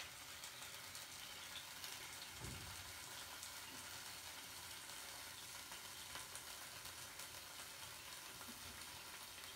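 Ginger-garlic paste sizzling faintly in hot coconut oil at the side of a frying pan, a steady hiss with small crackles, heated to drive off its raw pungency. One soft knock about two and a half seconds in.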